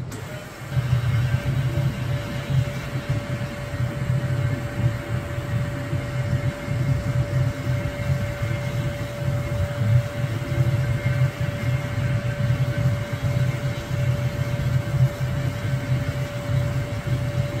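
Milling machine running with a steady whine while a small cutter machines a brass block, over an uneven low hum that gets louder about a second in.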